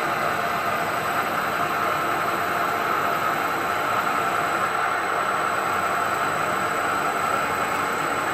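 CNC milling machine spindle running with a drill bit cutting into the induction-hardened bedway of a lathe: a steady, even hiss with no breaks.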